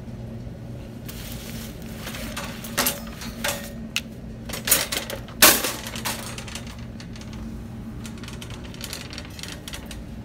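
Metal shopping cart being pulled free of a nested row, rattling and clanking in a run of sharp knocks, the loudest about five seconds in, then rolling with a light rattle over a steady low hum.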